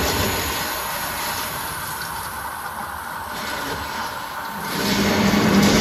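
Studio-tour tram running along, a steady rushing noise of its drive and wheels that dips in the middle and swells again near the end.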